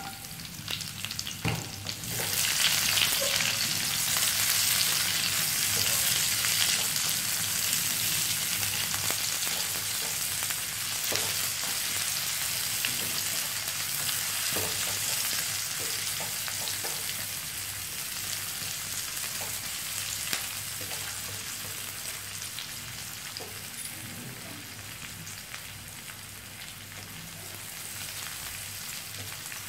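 Sliced onions sizzling in hot oil in a wok with garlic and dried chillies; the sizzle rises sharply about two seconds in and slowly dies down. A wooden spatula stirs the onions, with short scrapes and knocks against the pan.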